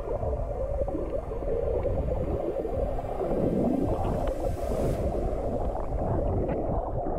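Muffled underwater noise picked up by a submerged camera: a low, wavering gurgling rumble of moving water with scattered small clicks.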